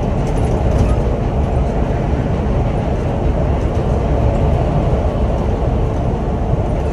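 Scania OmniLink city bus cruising at motorway speed, heard from the driver's cab: a steady low engine drone mixed with road and tyre rumble.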